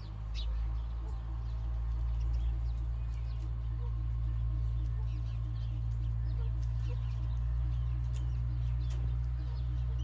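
Small birds chirping and twittering in short high notes throughout, over a loud steady low rumble.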